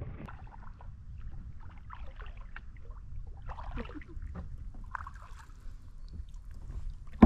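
Kayak paddles dipping and splashing in shallow water, with drips and small knocks, over a steady low rumble. A sudden loud thump comes at the very end.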